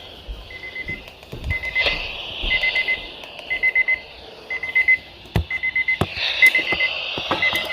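Electronic alarm beeping high and fast in groups of four, one group about every second, over a steady hiss with a few sharp clicks.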